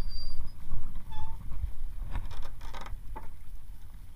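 Wind and sea noise on an open boat, with a short run of mechanical clicks about two seconds in from a Shimano Saragosa 8000 spinning reel as a hooked fish is reeled up to the boat.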